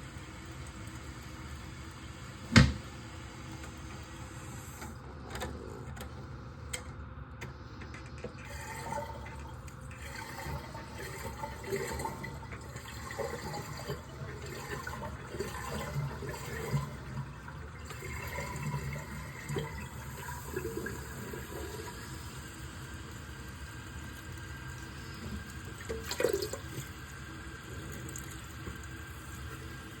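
Toilet cistern refilling through its fill valve: a steady hiss of running water with some gurgling, and one sharp click about two and a half seconds in. The fill valve, which the plumber thinks isn't working right, is filling slowly.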